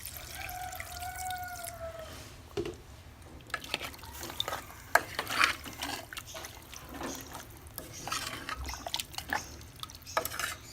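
Water poured into a metal pressure cooker of chicken and spices, then a spoon stirring and scraping in the pot with many quick clicks.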